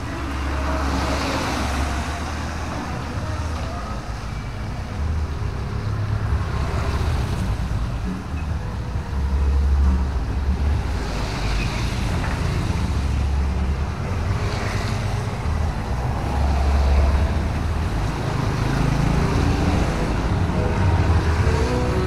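Traffic on a wet road: cars and motorcycles pass one after another, their tyres hissing on the wet asphalt, over a low rumble that swells and fades several times.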